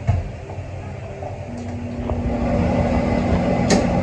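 A metal lid knocks onto an aluminium cooking pot at the start. About a second and a half in, a gas stove burner comes up under the pot with a steady low rumble and hum that grows louder, and a sharp click sounds near the end.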